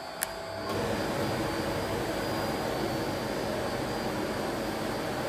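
A push button on a coating pan's control panel clicks about a quarter second in. Just after, the pan's air blower starts and runs with a steady rushing noise over the machine's faint hum.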